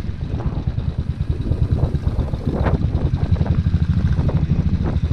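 Motorcycle engine running at low road speed, its exhaust pulsing in a fast, even beat.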